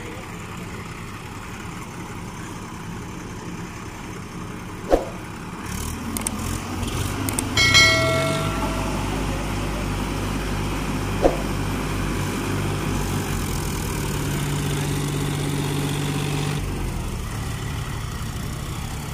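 Diesel tractor engines idling, then from about six seconds in revving up and running hard under load for about ten seconds before easing off, as one tractor tows the other through deep mud. Two sharp clanks come about five and eleven seconds in, and a brief high-pitched tone sounds about eight seconds in.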